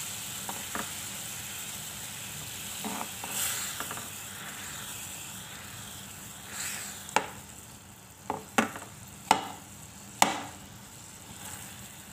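Homemade cream (malai) sizzling steadily as it melts in a pan over a medium flame, with a spoon stirring it and scraping against the pan about five times in the second half.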